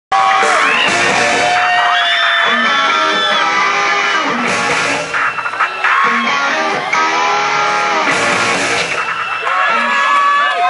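Live rock band playing loudly, with electric guitars to the fore over bass and drums.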